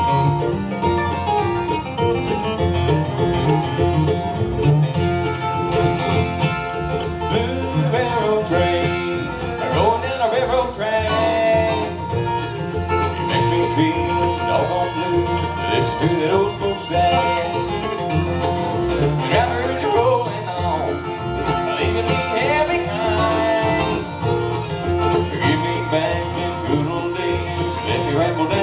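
Acoustic bluegrass band playing: flat-top guitars, fiddle, mandolin, dobro and upright bass over a steady bass beat, with sliding lead notes about ten and twenty seconds in.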